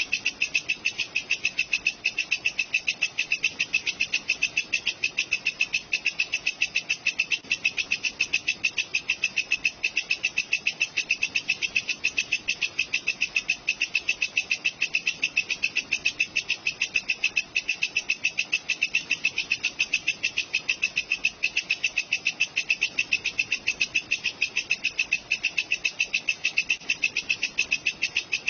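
Walang kecek, a katydid, calling in a fast, evenly spaced, unbroken run of high chirps.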